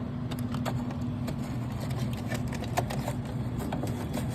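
Steady low machine hum with scattered sharp clicks and rattles, more of them in the second half, as a vending machine's bill acceptor is handled and opened.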